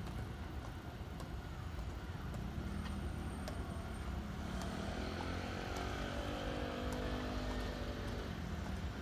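Keikyu electric train's traction motors whining over a low, steady rumble. From about halfway a stack of several tones comes in and slides in pitch, then fades near the end.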